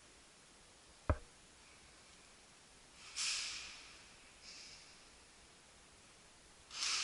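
Close breathing: heavy, hissy exhales swelling and fading over about a second each, three times, the middle one weaker. About a second in there is a single short, soft knock.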